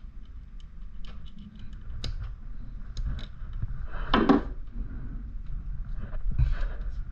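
Scattered light clicks and clinks of a bicycle chain and hand tools being handled while the chain is fitted, with a louder rustling clatter about four seconds in.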